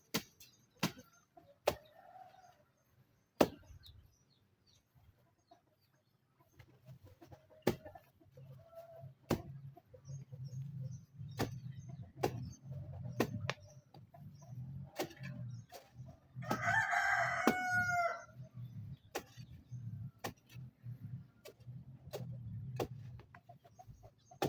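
A rooster crows once, about two-thirds of the way through, a single crow of about a second and a half. Sharp clicks or taps sound at irregular intervals throughout, over a low rumble.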